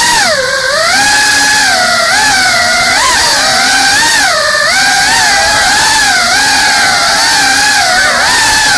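GEPRC CineLog35 cinewhoop's brushless motors and propellers whining, the pitch rising and falling every second or so with the throttle, heard from the camera on board the drone.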